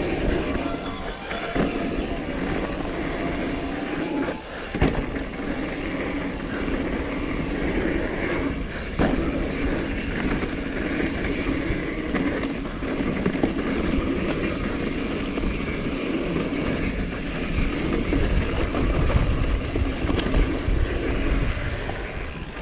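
Mountain bike rolling along a dirt singletrack: tyre noise and rattling from the bike, with a few sharp knocks, and wind rumbling on the camera's microphone, strongest near the end.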